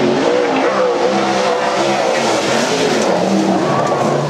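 Winged sprint car's V8 engine running hard on a dirt oval, its pitch rising and falling as the driver eases off and gets back on the throttle through the turn.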